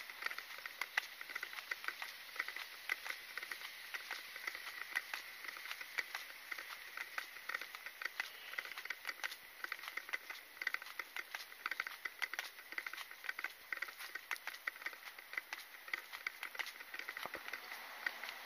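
Footsteps on a concrete sidewalk with carried gear clicking and rattling at each step: a dense, irregular run of small sharp clicks over a faint steady high hum.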